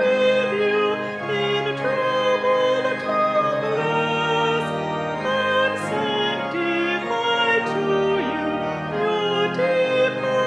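Slow music: a voice singing long held notes with vibrato over instrumental accompaniment.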